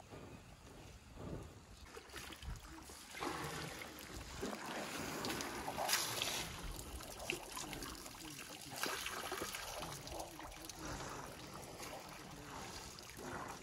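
African elephant dust-bathing, flinging sand and dirt over its body with its trunk: repeated rushing swishes of falling sand and soil, the loudest about six seconds in.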